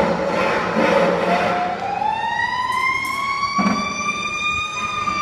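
A siren wailing, its pitch gliding slowly up and beginning to fall again, starting about a second in over a noisy rumble; a short click cuts across it partway through.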